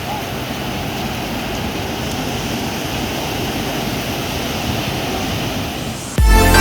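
Steady rushing of sea surf breaking on the beach, then electronic dance music with a heavy beat cuts in suddenly near the end.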